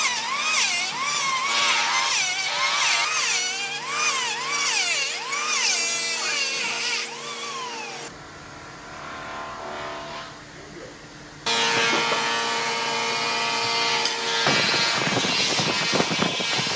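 Power tool motor whining, its pitch dipping and rising about once a second as it works into wood. After abrupt cuts it gives way to a quieter stretch, then to louder, noisier workshop tool sounds with knocks.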